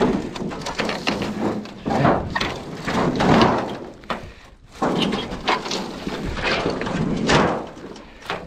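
Sheets of rusty corrugated metal roofing being lifted and dragged across one another in a stack, scraping and clattering. The sound comes in several long scrapes, with a brief lull about halfway.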